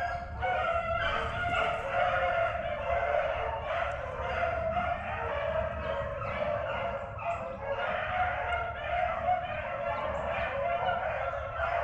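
A pack of beagles baying steadily while running a swamp rabbit, several voices overlapping without a break.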